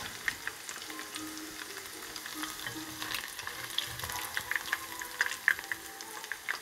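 Battered vegetable fritters of julienned potato, onion and carrot frying in oil in a nonstick wok: a steady sizzle with many small crackles and pops, a few louder ones from about three seconds in.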